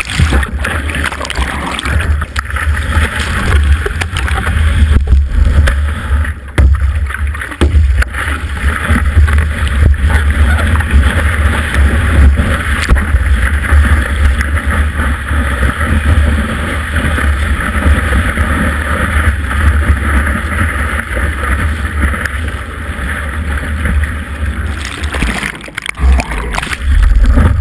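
Surf whitewater rushing and splashing over a board-mounted GoPro Hero, with a heavy buffeting rumble of water and wind on the microphone. It eases briefly near the end, then surges again.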